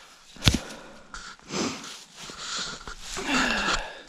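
A sharp knock about half a second in, then a person breathing heavily in and out several times, one breath falling in pitch like a sigh.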